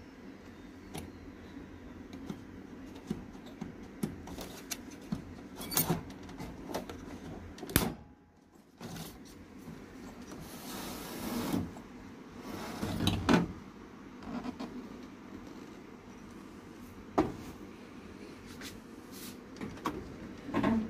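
Scattered clicks and knocks of hands handling the plastic parts of an opened Sharp AR-6023N copier, over a steady low hum. A brief rushing swell comes about eleven seconds in.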